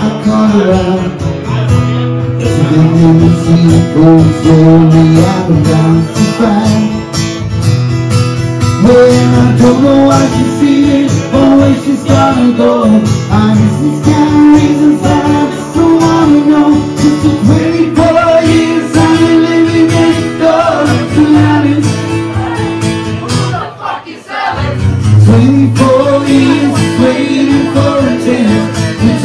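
Live acoustic performance: a man singing into a microphone over acoustic guitar, with a brief lull about three-quarters of the way through.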